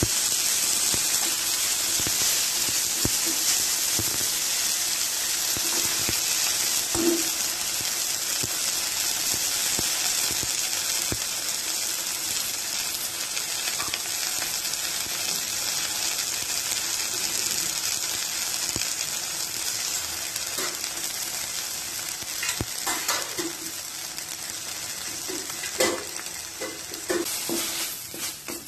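Fresh fenugreek leaves and coriander sizzling as they are dry-fried without oil in a non-stick pan, the steady hiss slowly fading as the leaves wilt down. A wooden spatula stirs and scrapes at intervals, more often near the end.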